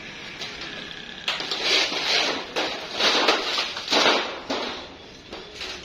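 A pointed steel scriber scratching along a metal template onto a steel sheet, marking out a tray blank: several short, harsh scraping strokes starting about a second in.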